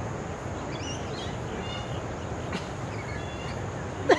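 Outdoor park ambience: a steady low background rumble with a few faint, high bird chirps about a second in and again past the middle. A laugh breaks in at the very end.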